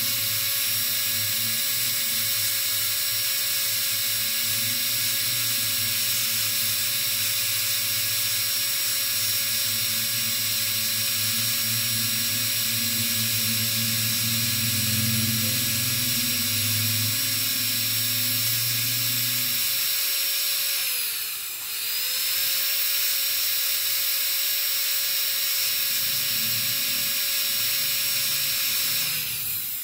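High-speed dental handpiece whining steadily as its bur cuts the cavity walls of a plastic model lower molar, undercutting the walls so they converge toward the top. About two-thirds of the way through, its pitch dips sharply and comes back up. Just before the end it winds down and stops.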